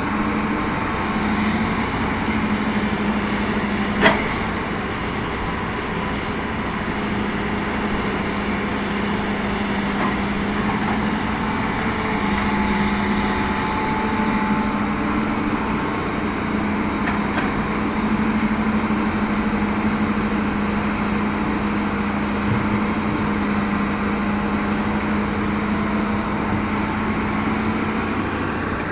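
Hitachi hydraulic excavator's diesel engine running steadily while it works, with one sharp knock about four seconds in.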